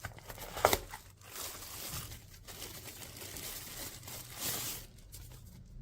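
Packaging being handled during an unboxing: faint crinkling and rustling, with a sharp click about two-thirds of a second in and a louder rustle a little before the end.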